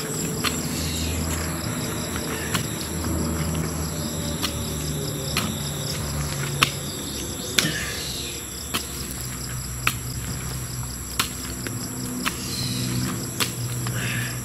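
A garden hoe chopping into loose soil, with sharp strikes at about one a second, over a steady high trill of crickets.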